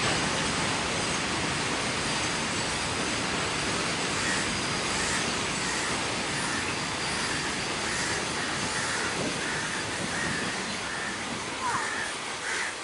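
Freight train of BCNA covered wagons rolling past on the track, a steady rolling rumble that eases off slightly near the end.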